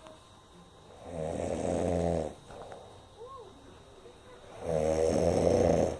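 Heavy snoring, snoring like a pig: two long, loud snores about three and a half seconds apart, with quiet breathing between.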